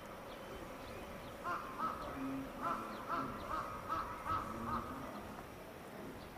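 A bird calling a quick series of about eight short calls, each a little under a second apart.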